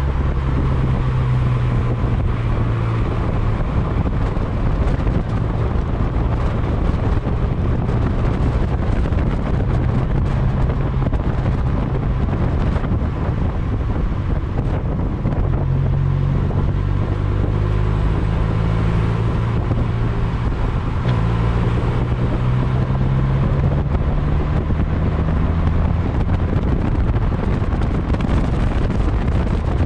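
2012 Fiat 500 Abarth's turbocharged 1.4-litre four-cylinder engine driving on the road, its note rising and falling several times, under wind buffeting and tyre noise from a microphone mounted low beside the front wheel.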